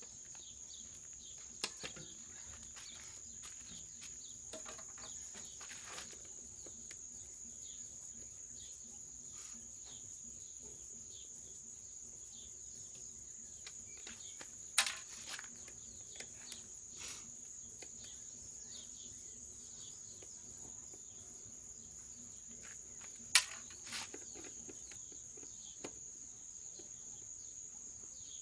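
Insects keeping up a steady high-pitched drone, with a few sharp clicks or knocks now and then, the loudest two about a quarter and three quarters of the way through.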